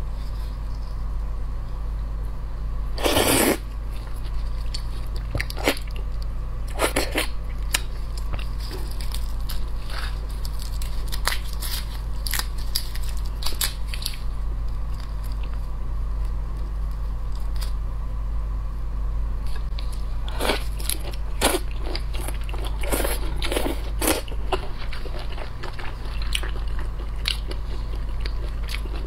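Close-miked eating sounds: the shells of large red shrimp crackling and clicking as gloved hands peel them, mixed with wet biting and chewing. Irregular short clicks throughout, with a louder, longer crackle about three seconds in.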